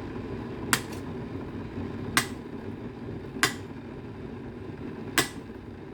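Knife cutting cooked plantain into pieces, the blade knocking sharply on the cutting surface four times at slow, uneven intervals, over a steady low hum.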